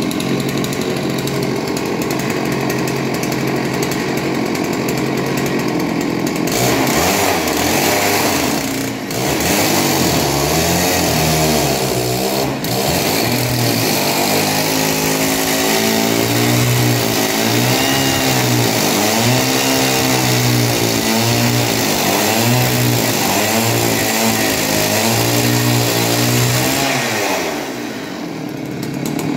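Gasoline chainsaw ripping a pine log lengthwise into boards. It runs at a steady high pitch at first; from about six seconds in the pitch wavers up and down as the chain bites into the wood under load. Near the end the engine speed falls away.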